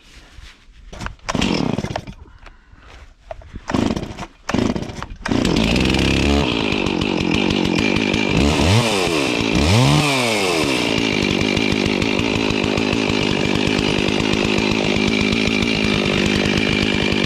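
Chainsaw pull-started with several short pulls, catching about five seconds in. It revs up and down twice, then runs steadily.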